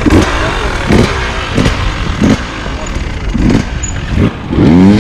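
Enduro motorcycle engine worked with short throttle bursts every half second to a second over a steady low rumble, then revving up hard near the end.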